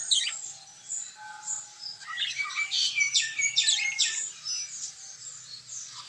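A flock of budgerigars chattering and chirping, many short high calls overlapping, busiest from about two seconds to four and a half seconds in.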